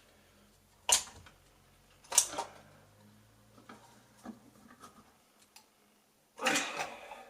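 Sharp knocks and clicks of hand tools and a plastic electrical back box being handled at a brick wall: two loud ones about one and two seconds in, a few fainter taps, and a short scraping clatter near the end.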